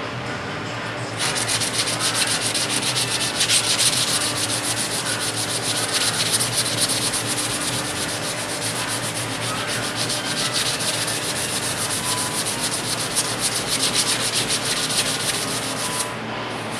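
Dry block sanding by hand: sandpaper on a sanding block rubbed in quick back-and-forth strokes over cured body filler on a car body panel, a scratchy hiss that starts about a second in and stops near the end.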